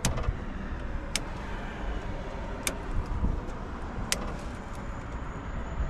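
Cutters snipping off zip-tie tails: four short, sharp snips a second or more apart, over a steady low background rumble.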